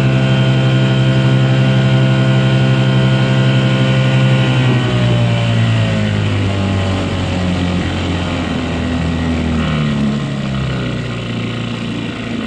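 1969 Evinrude Lightwin 4 hp two-stroke outboard motor running under way, then throttled back about four to five seconds in, its pitch falling to a lower, slightly quieter steady run.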